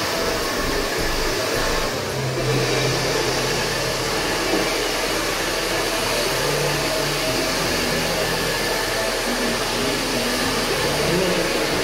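Handheld hair dryer blowing steadily: a constant, even rush of air.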